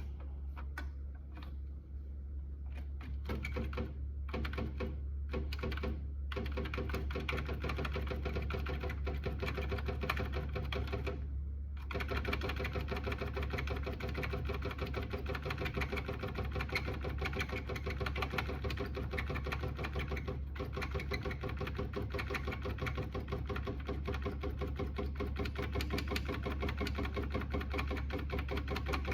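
Electric typewriter printing, its typing mechanism striking in a fast, continuous run over the steady hum of its motor, with a brief pause twice.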